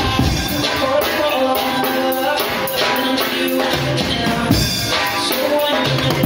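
Music with a drum kit keeping a steady beat under pitched melodic instruments; the deep bass drops away for most of the stretch and comes back near the end.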